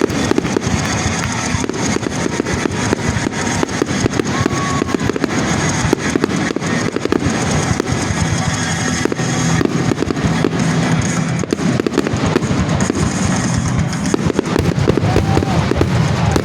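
Fireworks going off in a dense, rapid barrage of booms and crackling with no pauses, over background music.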